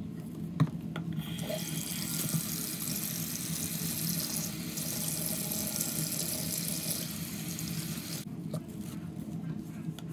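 Bathroom sink tap running onto a curly hair bundle that is being rinsed of bleach by a gloved hand. The water runs from about a second in and stops near the end. A single sharp click comes just before the water starts.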